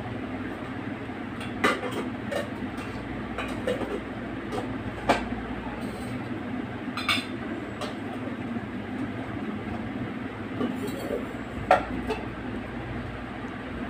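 Steady rumbling background noise with scattered sharp clicks and clinks, the loudest about two seconds in, five seconds in and near the end.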